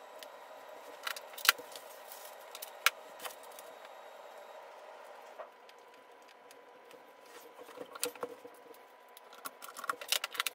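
Sharp clicks and light rattling of an electric standing desk's plastic cable connectors and control box being handled and plugged in, the loudest clicks about one and a half and three seconds in and a quicker run of small clicks near the end.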